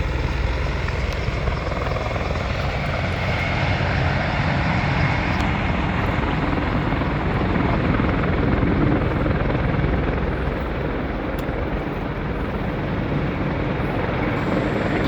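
Helicopter coming in to land, its rotor and engine noise loud and steady.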